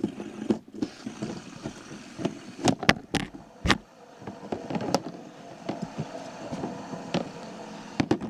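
Handling noise while a toy car track is being set up: irregular clicks and knocks of objects being picked up and put down, with a faint steady hum underneath.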